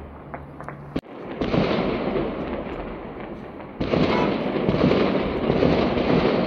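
Fireworks crackling in a dense, continuous barrage. The sound starts after a sudden break about a second in and steps up louder a little under four seconds in.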